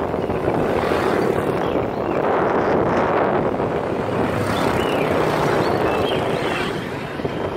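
Steady rushing wind buffeting the microphone of a camera carried on a moving bicycle.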